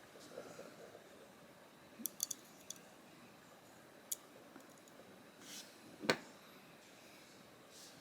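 Light clicks and taps of a T8 Torx driver and small screws being handled as a folding knife's body screws are fitted: a quick cluster of clicks about two seconds in, a single click near four seconds, and a louder knock about six seconds in.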